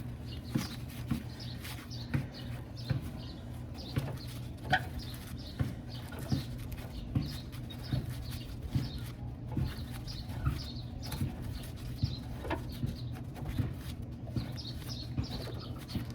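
Hand tool turning a tight outer tie rod end off its threaded tie rod: a light click about every half second to second as the tool is worked, over a steady low hum.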